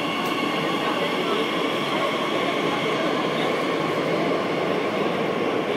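Madrid Metro series 8000 train pulling out of an underground station and running away along the track: steady rail and running noise, with a high whine of several tones that fades over the first few seconds.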